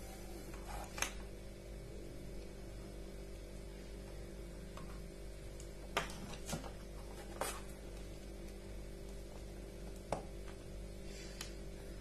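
Quiet room tone with a steady low hum, broken by about six short clicks and taps as plastic rotary-switch knobs and wires are handled on a table.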